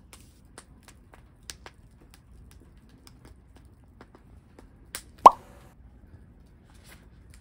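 Wood fire crackling in a metal fire pit: scattered small snaps and clicks, with one much louder sharp pop about five seconds in.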